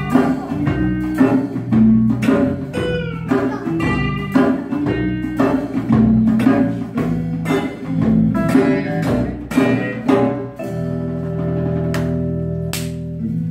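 Live acoustic band playing an instrumental passage: acoustic guitars and electric bass over a steady hand-drum beat. About eleven seconds in, the beat stops and the band holds one chord that rings on.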